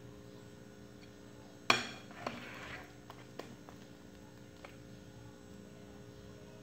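Metal spoon stirring thick egg batter in a glass bowl, with one sharp clink against the bowl about two seconds in and a few lighter taps after.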